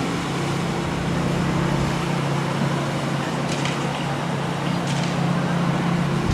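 Boeing Stearman biplanes' radial engines running in flight, a steady engine note with no rise or fall.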